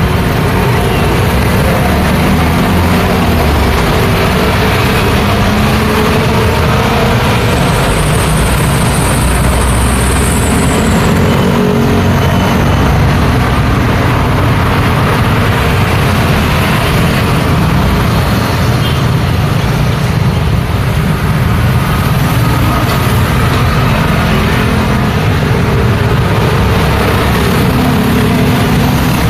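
Busy road traffic passing continuously: the engines of cars and trucks with tyre noise, loud and steady. A high, thin whine sounds for about three seconds, starting around eight seconds in.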